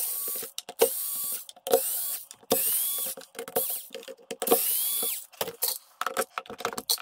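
Handheld electric screwdriver run in six short bursts, each with a whine that rises as the motor spins up, backing screws out of an e-bike battery's plastic case. After about five seconds come a run of sharp clicks and taps of tools and screws being handled on the case.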